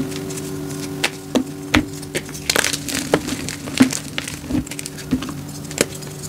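Dyed SPRI gym chalk blocks crunching as hands squeeze and crumble them, a run of sharp irregular cracks and crumbling crunches.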